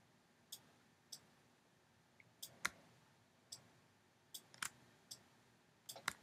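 Computer mouse clicks: about ten short, sharp clicks at irregular intervals against faint room hiss, the loudest about two and a half seconds in, as bones are option-clicked and dragged into place.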